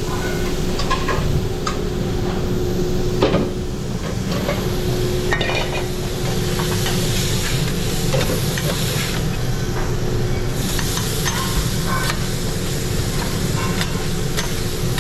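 Food sizzling on a hot pan on a restaurant cooking line, with scattered clicks and knocks over a steady hum.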